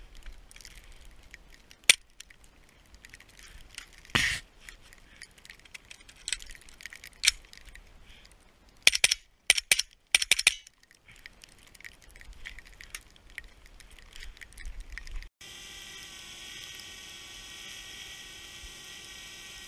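Suppressed .300 AAC Blackout AR-15 pistol firing: single shots a few seconds apart, then a quick string of about six shots. After that comes a small quadcopter drone hovering close by, with a steady high-pitched propeller buzz.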